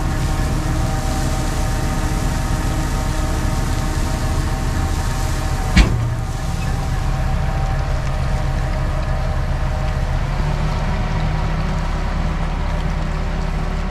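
Tractor engine running steadily as it pulls a manure spreader, beaters removed, that is unloading sawdust out the back. A single sharp knock comes about six seconds in.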